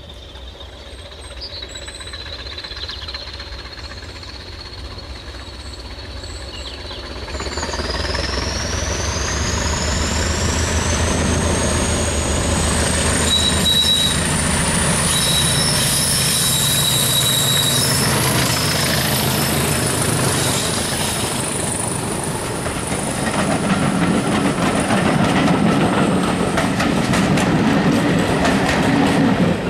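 BR Class 20 diesel locomotive, with its English Electric eight-cylinder engine, approaching and running past at the head of a train of coaches. The engine rumble grows louder over the first several seconds. From about seven seconds in, a high whistle climbs in pitch, and a few short high squeals come from the wheels. Near the end the passing coaches rattle and click over the rail joints.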